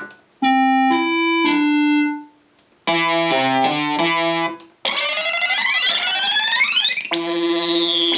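Casio CZ-1000 phase-distortion synthesizer playing a run of different patches in turn: a few decaying bell-like notes, a short stepping keyboard phrase, a patch of criss-crossing pitch sweeps rising and falling, then a held note with a falling sweep over it near the end.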